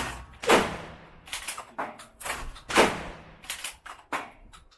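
Two loud shotgun shots about two seconds apart, each ringing out afterwards, with several smaller sharp knocks around them.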